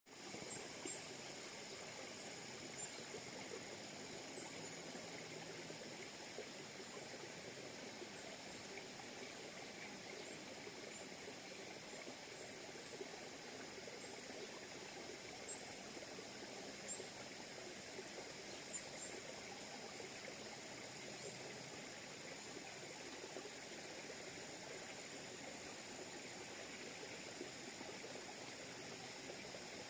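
Steady rush of flowing water, like a stream, with faint short high chirps scattered through it.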